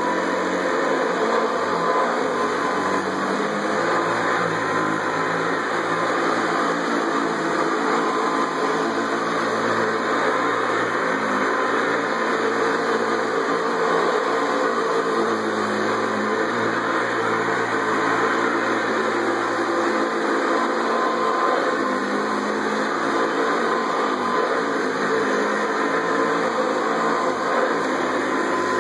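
1985 Hoover Custom Convertible U4395 upright vacuum cleaner running steadily at full speed, its motor and fan giving an even whir with a steady high whine. It runs very smooth.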